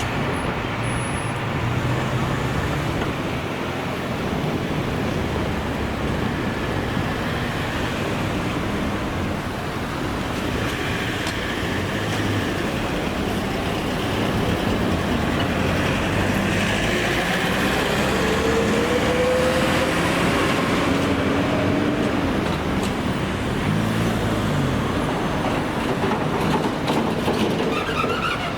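Steady road traffic noise of passing motor vehicles, with an engine pitch rising about two-thirds of the way through.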